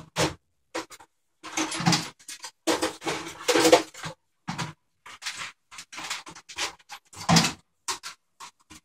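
Rummaging through tools and small hard objects while searching for an Allen wrench: an irregular run of clattering, knocking and scraping, with short pauses between bursts.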